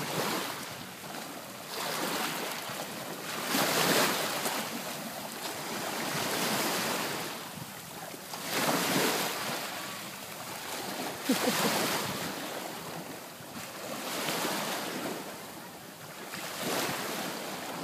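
Small waves lapping and washing up on a sandy shore, the surf swelling and fading every two to three seconds.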